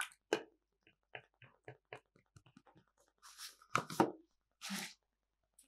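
Paintbrush working in a watercolour paint palette: a quick run of light taps, about five a second, then two short scrubbing swishes with a louder knock between them.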